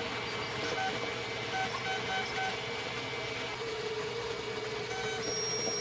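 Hypercube 300 3D printer running a print: its stepper motors whine in steady tones that shift pitch as the print head moves, with a few short chirps early on and a new, higher tone about five seconds in. Underneath is a steady hiss.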